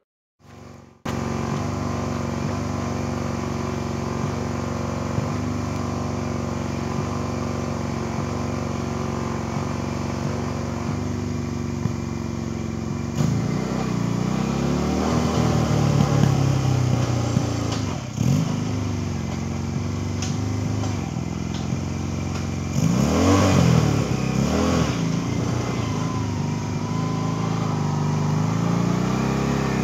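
A homemade ATV's Mondial MCT 250cc single-cylinder four-stroke engine idles steadily. From about halfway through it is revved up and down several times.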